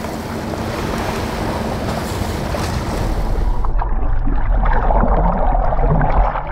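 Open-ocean water splashing and rushing beside a boat, with wind buffeting the microphone. About three and a half seconds in, the sound turns abruptly muffled and dull, a low rumble with bubbling as heard from a camera underwater.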